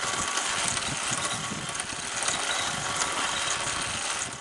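ATV engine running steadily, used as a moving cow simulator alongside a horse working the fence.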